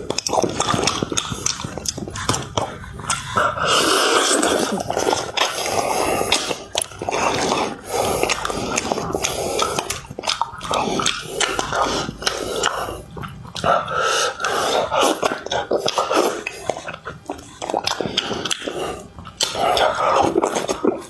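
Close-miked eating sounds of a man working through spicy braised fish: slurping, sucking and chewing, with many short wet smacks and clicks and heavy breaths through the nose.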